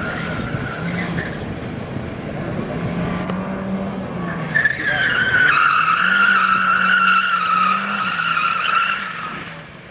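Nissan 200SX S14 drifting: the engine holds steady revs while the rear tyres squeal. A short squeal fades out in the first second or so, and a long, loud squeal starts about halfway through and dies away near the end.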